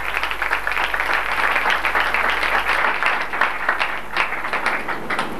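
An audience applauding: many hands clapping together in a dense patter, with single sharper claps standing out toward the end.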